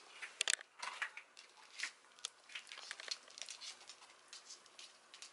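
British Shorthair cat crunching dry kibble eaten from a hand: a string of sharp, irregular crackles, the loudest about half a second in.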